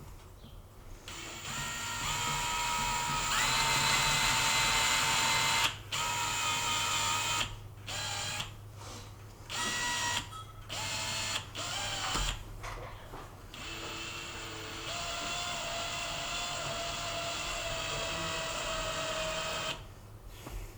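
Power drill running in repeated bursts, starting and stopping several times, the motor whine holding a steady pitch during each run and shifting slightly between runs.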